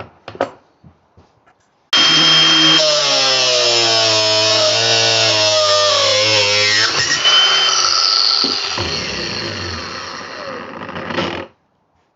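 Ryobi P423 18-volt cordless brushless angle grinder switched on with a sudden start, running loud with a high whine, then fading down and stopping about a second before the end. A few sharp clicks come just before it starts.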